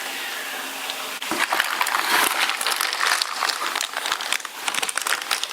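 Plastic packaging crinkling and rustling as a new pressure cooker is unwrapped, beginning about a second in with many quick crackles.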